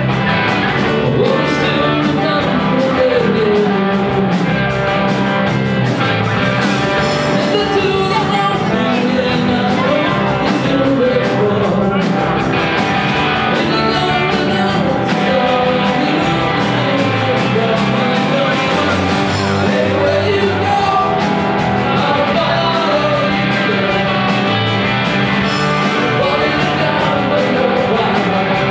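Live rock band playing a song, with a singer over guitar, bass and drums.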